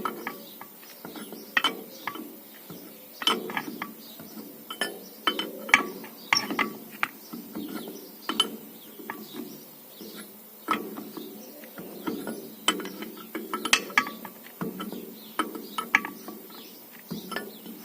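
Irregular metallic clicks and clinks of hand tools at work, ratchet-like, coming a few times a second in uneven clusters.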